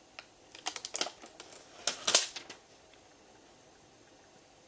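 Thin protective plastic film peeling off an alarm clock's LCD screen and crinkling in the fingers: a quick run of crackles and rustles over the first two and a half seconds, loudest about two seconds in, then quiet.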